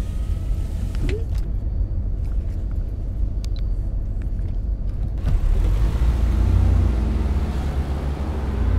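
Car road rumble heard from inside the cabin, a steady low drone that grows louder and fuller about halfway through.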